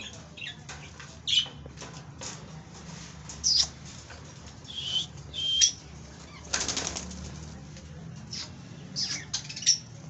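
Indian ringneck parakeet being lifted out of its cage by hand: short high-pitched squawks come several times, and a brief burst of wing flapping comes about six and a half seconds in.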